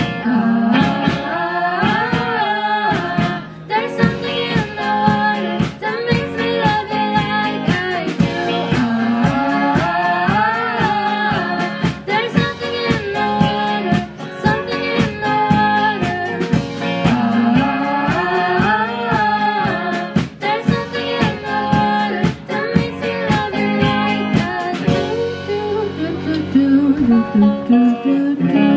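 Live pop-rock band: several voices singing together over electric guitar, electric bass and drums with a steady beat. The singing stops about 25 seconds in and the instruments play on.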